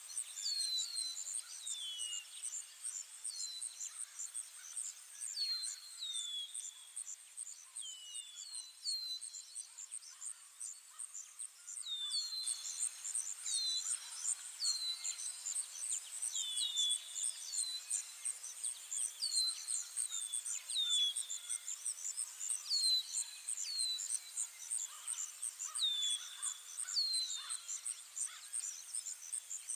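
Nature ambience: insects trilling in a fast, steady pulse, with short falling bird chirps repeated every second or two.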